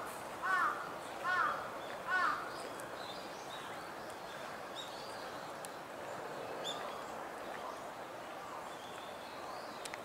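A crow cawing in an even series, three harsh caws just under a second apart in the first two and a half seconds, then stopping. After that only faint high chirps of small birds over steady background noise.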